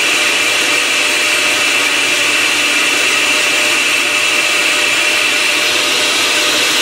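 Countertop blender running at a steady speed, liquidising a tomato into a purée.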